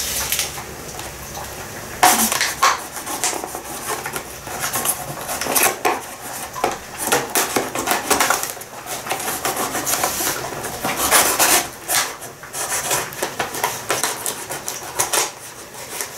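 Kitchen knife scraping and clicking against a plastic food tray as minced meat is cut and pried loose, in a run of irregular scrapes and taps.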